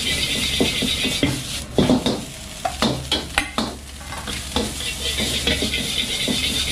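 Fried rice sizzling in a hot wok while a metal ladle scrapes and clacks against the wok as the rice is stirred and tossed, the knocks coming thickest about two to three and a half seconds in. A low steady hum runs underneath.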